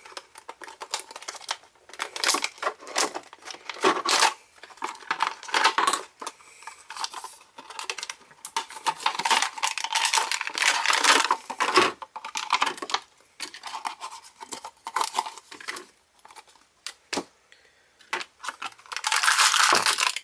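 Stiff clear plastic blister packaging and card being torn and pried apart by hand, with irregular crackling and crinkling throughout and a longer burst near the end.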